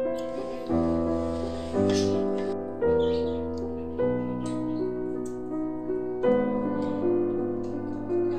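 Background piano music: sustained chords, each struck anew roughly once a second.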